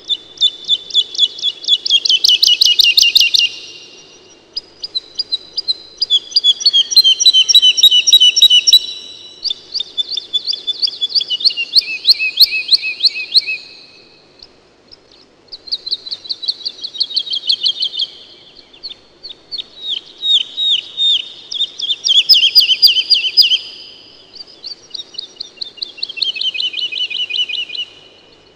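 A songbird singing rapid trilled phrases of a few seconds each, repeated about seven times with short pauses between.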